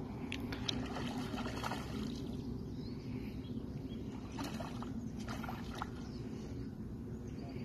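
A hooked fish splashing and swirling at the water's surface as it is played on a fly line, in short intermittent splashes over a steady low background noise.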